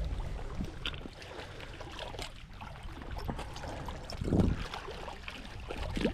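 Water sloshing and trickling at the lake's edge, with scattered small knocks and a louder splash or thump about four seconds in.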